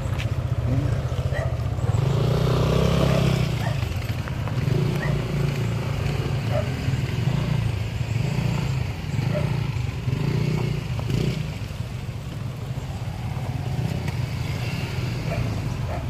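Several motor scooter engines running at low speed, the sound swelling and easing as the scooters ride by.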